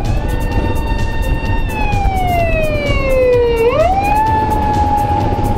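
Police car siren wailing: it rises, holds, slides slowly down, rises quickly again about three and a half seconds in and holds. Underneath is the steady rumble and wind of a motorcycle ride.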